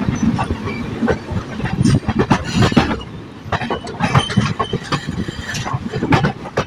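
Wheels of a moving Narmada Express passenger coach clattering over rail joints and points, a steady rumble broken by many irregular sharp knocks and clanks. Heard close up from the open coach doorway.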